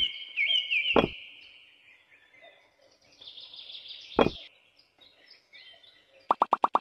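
Bird chirps running on and off, cut by two sharp clicks, about a second in and again at about four seconds. Near the end a fast, evenly repeating pulse of about eight beats a second starts.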